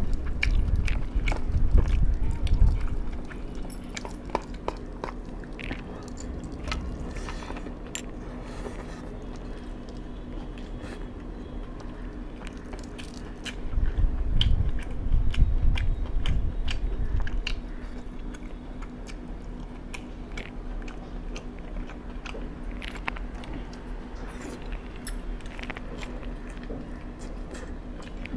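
A person eating close to the microphone: biting and chewing with many short crunchy clicks and mouth sounds. Louder low rumbling stretches come near the start and again about halfway through, over a steady low hum.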